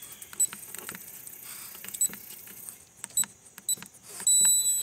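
Keypad of a travel trailer's electronic door lock being punched in: button clicks with a few short high beeps, then a longer steady beep near the end as the unlock code is entered.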